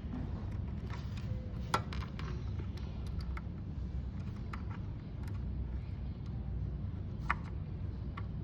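Light, scattered clicks and taps of a screwdriver and small screws on a motherboard's SSD cover as it is screwed down, over a steady low hum. The sharpest clicks come a little under two seconds in and again near the end.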